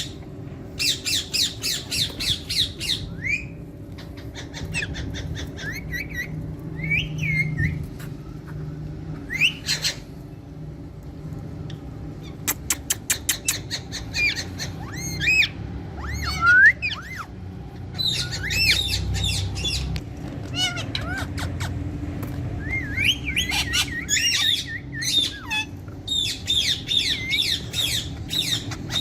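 Green parrots squawking in repeated bursts of rapid harsh calls, with short whistled notes that swoop up and down in between.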